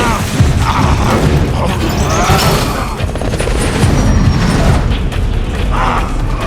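Dense action-film sound mix of a helicopter crash: heavy low rumble and booms with metallic clattering and knocks, under music and brief shouts.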